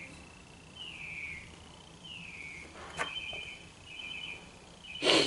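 Birds chirping in the background: short falling chirps about once a second, then quick trills. A sharp click about three seconds in and a loud thump near the end.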